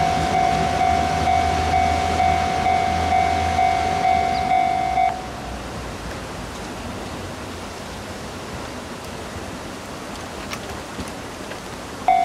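Japanese railway level-crossing warning bell ringing its steady electronic ding at about two strokes a second. It stops about five seconds in and starts again just before the end. In the gap, the slow Kiya E195 rail-transport train's steady low rolling noise is heard, with a couple of faint clicks.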